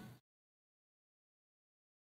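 Near silence: the sound drops to nothing right after the start.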